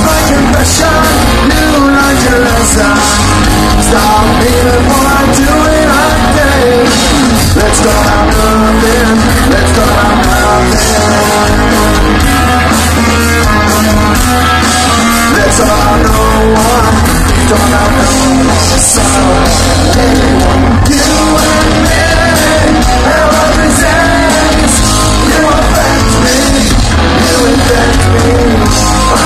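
Punk rock band playing live: distorted electric guitars, bass and drums with a shouted lead vocal, loud and unbroken, heard from within the audience.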